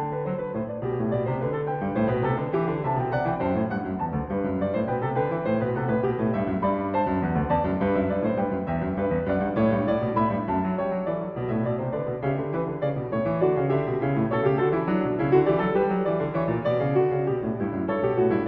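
Solo piano music: a continuous flowing piece with rising and falling figures in the lower notes.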